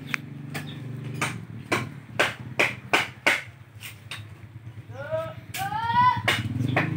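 A run of sharp knocks, about two to three a second, over a steady low hum. A voice calls out twice briefly, about five seconds in.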